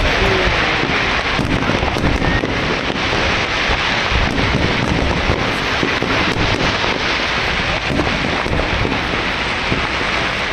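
Aerial fireworks display in full barrage: a dense, continuous crackle of many small overlapping cracks and pops from bursting shells and crackling stars, with deeper booms underneath.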